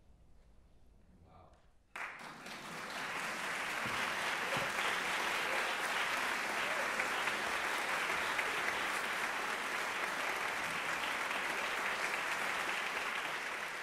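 Audience applause, breaking out suddenly about two seconds in after a short hush, swelling quickly and then going on steadily.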